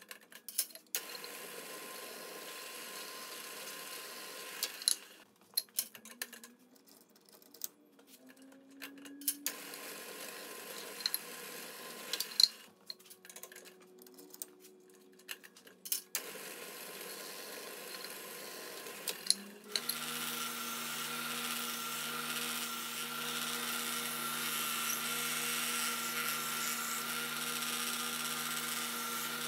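Benchtop drill press running in short spells while drilling holes in a pine board, with sharp clicks and knocks in the pauses as the board is moved between holes. About twenty seconds in it gives way to a belt sander running, louder and steady.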